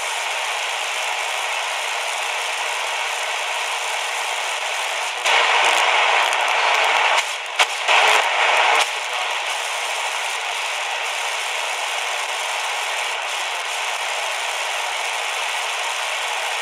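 Shortwave static hissing from the small speaker of a QFX R-39 portable radio as its dial is tuned across a band with no stations coming in. The static gets louder and rougher for a few seconds about a third of the way in, then settles back to a steady hiss.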